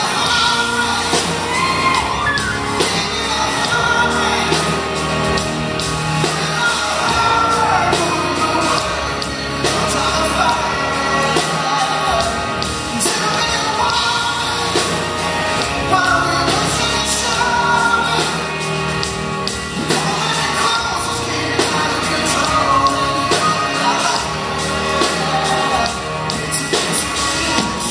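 Live rock band with a male lead singer: sung vocals over electric guitar and drums with a steady beat.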